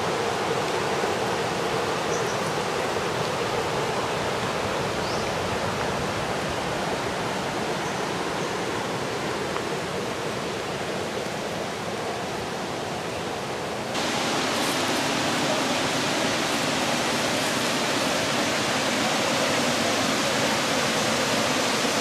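Steady rush of water from a waterfall and stream, an even hiss with no separate splashes. About 14 seconds in it suddenly becomes louder and brighter and then holds steady.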